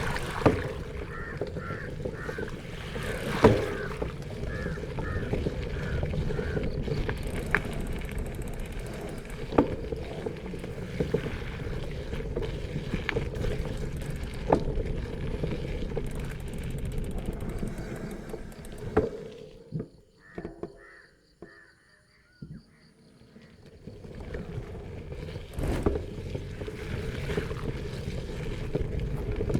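Crows cawing repeatedly over the steady noise of a bicycle ride, tyres on the road and wind, with scattered clicks and knocks. The ride noise drops away briefly about two-thirds through, then returns.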